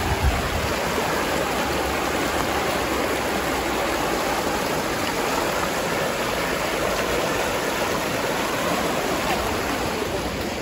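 A small river running: a steady, even rush of flowing water.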